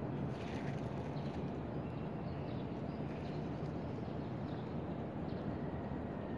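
Steady low rumble of outdoor city background noise, with a few faint high chirps scattered through it.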